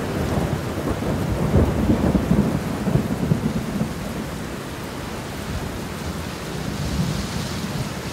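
Steady heavy rain with a long roll of thunder, strongest from about one to three and a half seconds in, then easing back to the rain.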